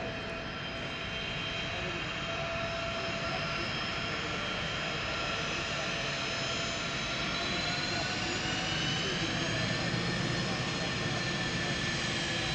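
A twin-engine business jet with rear-mounted turbofans whines steadily at low power as it taxis. Its high whine tones shift slightly in pitch midway through, and the sound grows a little louder toward the end as the jet nears.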